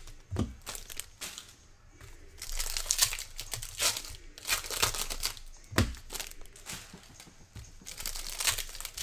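Foil wrapper of a baseball card pack being torn open and crinkled by hand, in irregular rustling bursts. There are a couple of soft thumps, one just after the start and one about two-thirds through.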